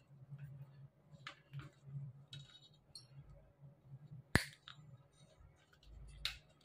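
Light clicks of insulated hook-up wires and tools being handled, with one sharp snap about four seconds in as side cutters close on a wire.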